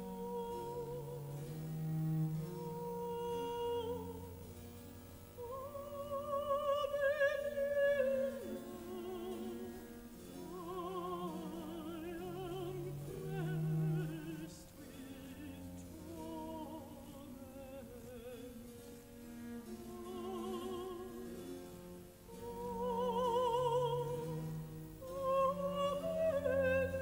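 Operatic singing with a wide vibrato over a classical instrumental accompaniment of sustained low notes.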